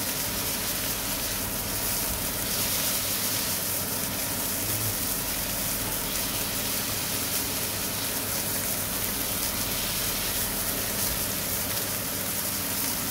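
Beef patties sizzling steadily in a frying pan while they are pressed flat with a spatula.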